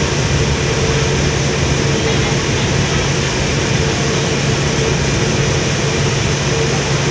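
A car ferry's diesel engines drone steadily under way, a constant low hum, over a broad rushing noise from the propeller wash churning behind the stern.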